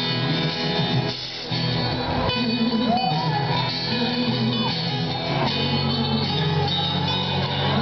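Live song: a man singing through a microphone and PA, accompanied by two strummed acoustic guitars.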